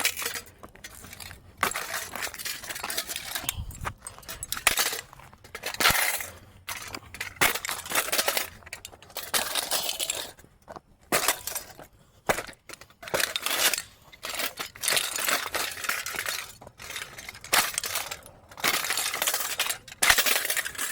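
A ceiling fan being smashed, struck repeatedly about every one to three seconds, each blow followed by breaking and clinking of glass and metal pieces.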